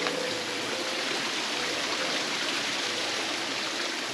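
Small forest stream running steadily over rocks.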